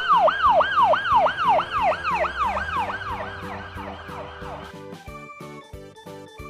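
A siren sound effect wailing in fast repeated sweeps, about three a second, that fade away and stop after about four and a half seconds. Children's background music plays under it.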